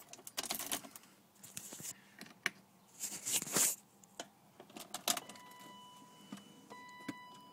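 Keys jangling and clicking with scattered handling rattles. A faint steady high tone comes in about five seconds in.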